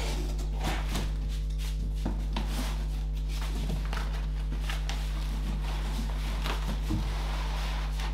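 A steady low hum throughout, with faint scattered knocks and rustles of a cardboard box being handled and set down on the floor.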